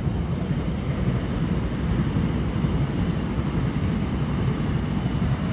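A steady low rumbling noise, with a faint thin high tone coming in about halfway through.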